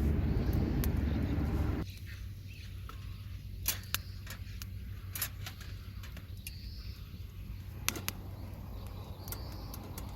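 Outdoor ambience: a low rumble that cuts off suddenly about two seconds in, then a quiet background with scattered sharp clicks and knocks and a few faint high chirps.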